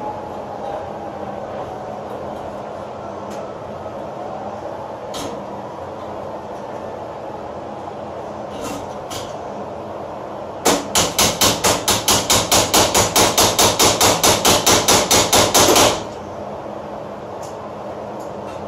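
Rapid hammering, about five sharp blows a second for some five seconds, starting a little past halfway, over steady background noise with a few isolated knocks.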